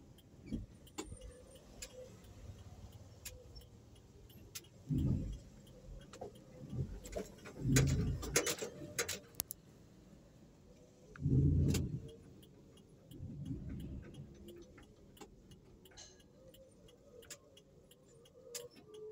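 A car driving slowly, heard from inside the cabin: a quiet low running sound with several dull low rumbles and thumps over the road, and scattered small clicks and rattles.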